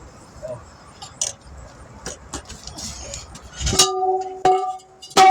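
Metal clanks from hand tire-mounting tools and a wheel rim: small taps and clicks, then three sharp metallic strikes that each ring on with a clear bell-like tone, the last one the loudest.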